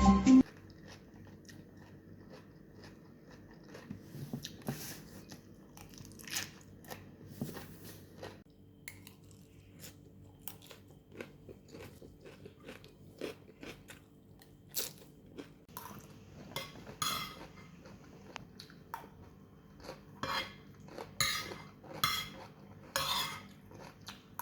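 Close-miked eating: crunching and chewing a fattoush salad, with utensils clinking against the dish. Scattered crunches, sparse at first and louder and more frequent in the last third.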